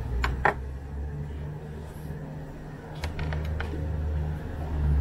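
Light clicks and knocks of a small plastic housing and a screwdriver being set down on a table: two sharp clicks about half a second in and a quick cluster of lighter ones about three seconds in, over a steady low rumble.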